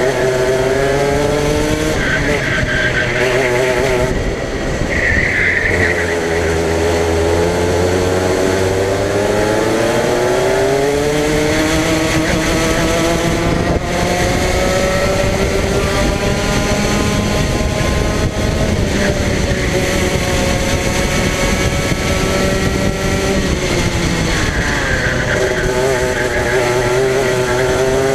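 Racing kart engine heard close up from the kart itself, revving up for several seconds as it accelerates, holding high along the straight, dropping as the throttle is lifted about two-thirds of the way through, then picking up again near the end.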